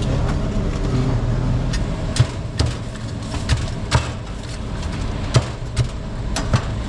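Steel cleaver chopping fried chicken on a round wooden chopping block: a run of sharp chops, about seven, spaced irregularly, starting about two seconds in, over a steady low rumble.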